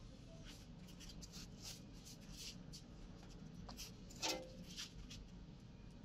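Rustling and scraping of bags being handled and set down on a swing's cushioned seat to load it for a load test, with one louder knock about four seconds in.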